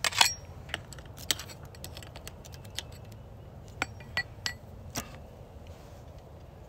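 Sharp metallic clicks and clinks of a chainsaw chain and a small hand tool being handled as the loosened chain is worked off the bar of an Echo 7310 chainsaw, jammed by wood chips packed under the sprocket cover. The clicks come singly and irregularly, the loudest right at the start.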